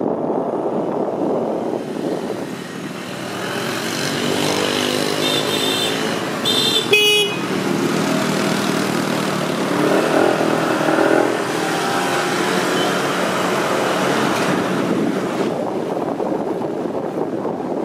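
Motorbike street traffic: scooter and motorbike engines running steadily, with a short burst of horn beeps about six to seven seconds in.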